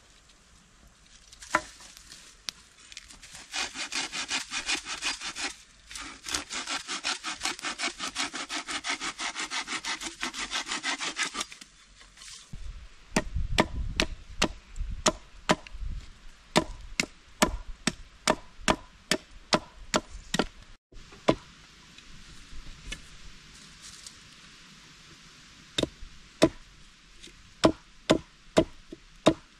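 Hand saw cutting through wood for about eight seconds, then a run of sharp chopping strikes on wood, one or two a second.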